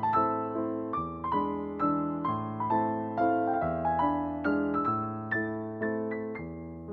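Background music: a gentle solo piano piece, notes struck in a steady arpeggiated pattern and left to ring and fade.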